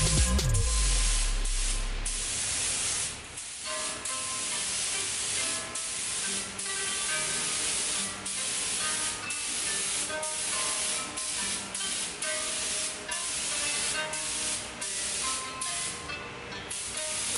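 Compressed-air gravity-feed spray gun hissing as it lays on the Modesta BC-06 spray-type coating, in short passes that break off briefly about once a second as the trigger is let go.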